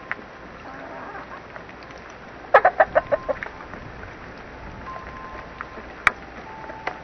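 Chickens clucking: a quick run of about six clucks about two and a half seconds in. A single sharp click comes near the end.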